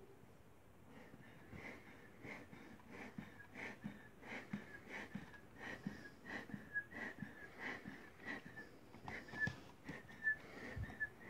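Hand-pumped rubber bellows horn on a homemade tin-can fog machine, squeezed again and again. Each squeeze gives a short, faint, wheezy whistle as air is forced out through the can's nozzle, about one and a half times a second.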